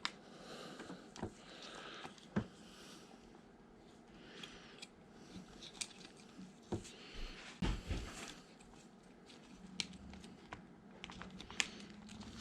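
Hands working on a small plastic 1/24-scale RC crawler and its battery: scattered light clicks and taps with some rustling, and a few duller knocks about eight seconds in.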